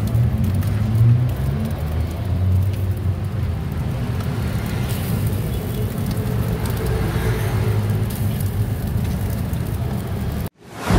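Steady low rumble of roadside street noise with traffic. It cuts off abruptly near the end, and a brief different sound follows.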